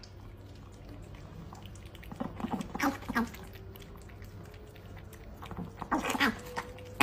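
A small dog and a cat lapping from a shared bowl, with two bursts of short dog sounds, one near the middle and one about a second before the end.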